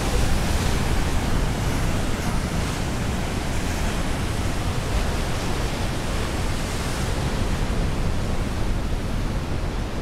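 Ocean surf and wind: a steady, even rushing noise with a rumbling low end that does not let up.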